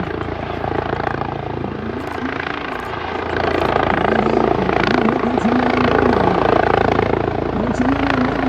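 Helicopter running as it comes in, its rotor and engine a steady loud drone that grows louder about three and a half seconds in.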